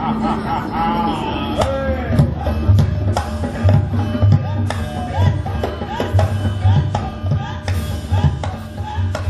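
Javanese gamelan accompaniment for a wayang kulit puppet dance. Kendang hand-drum strokes are joined by sharp, frequent knocks and clatters of the dalang's cempala and keprak. In the first second and a half a drawn-out, wavering voice cries out and then glides down.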